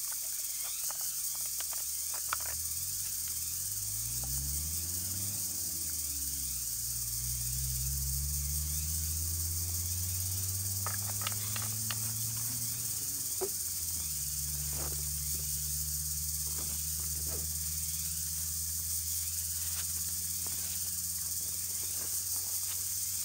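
Steady high-pitched insect buzz of the forest, with a low hum that slides up and down in pitch in the middle and then holds steady. Scattered short clicks and dry-leaf rustles come through, more of them in the second half.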